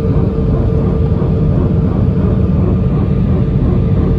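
Jet airliner cabin noise on the approach to landing: engines and airflow make a steady low rumble with a constant hum over it.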